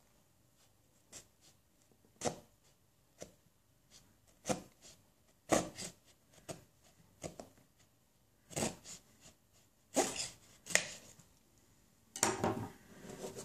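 Knife blade slitting the paper seal sticker along the lid of a cardboard phone box: a series of short, irregular cuts and scrapes. Near the end, a longer rubbing as the box itself is handled.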